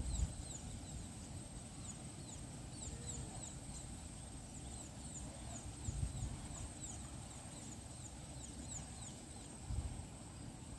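Outdoor ambience: a steady high-pitched insect drone with a run of short, falling high chirps about two a second, over a low rumble with a couple of soft low bumps.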